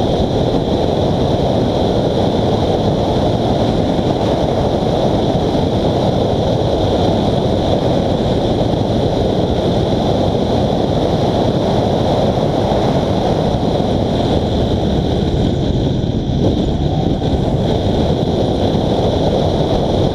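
Steady loud rumble inside a Honda Civic FD2 Type R driven at speed: road, wind and engine noise blended into one dull roar, with no distinct engine note.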